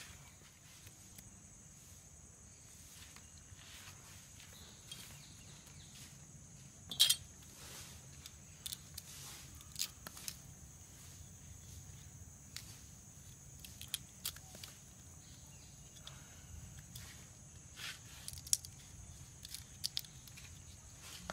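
A large kitchen knife shaving and cutting the husk of a small immature coconut (kurumbetti), heard as faint scrapes with scattered sharp clicks of the blade. The loudest click comes about seven seconds in.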